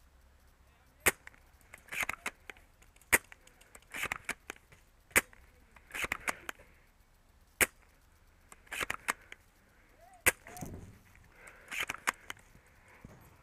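Airsoft guns firing nearby: sharp single cracks about every two to two and a half seconds, each followed about a second later by a quick cluster of clicks.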